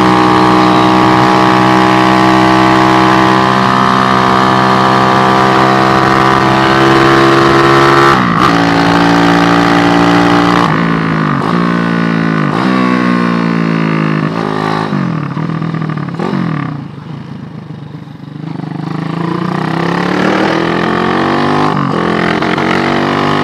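SND ZS190 single-cylinder 190 cc motorcycle engine running hard at high revs, heard from on board while riding. For about eight seconds it holds a steady note with a slowly sinking pitch, then changes abruptly. After that the revs drop and climb again several times, and the engine goes quiet for a couple of seconds on a closed throttle before pulling up again near the end.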